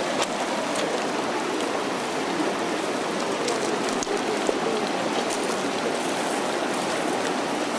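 Water pouring and dripping from a wet cast net onto river stones, heard as a steady rain-like patter over the rush of a shallow rocky stream, with a few sharp clicks.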